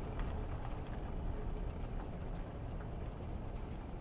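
Vehicle engine running with a low, steady rumble, heard from inside the cab.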